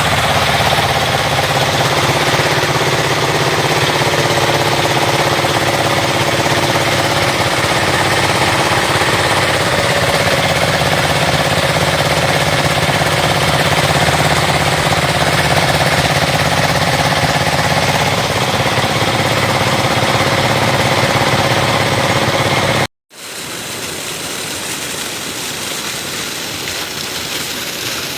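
Well-drilling rig running steadily: a loud, dense mechanical noise with a fast low pulsing. About 23 seconds in it cuts off abruptly, and a quieter steady rushing noise follows.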